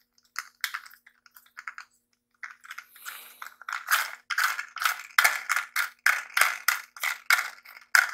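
Plastic toy fire truck handled in the hand, giving light plastic clicks and rattles. They are sparse at first, then a quick even run of about four clicks a second from about halfway in.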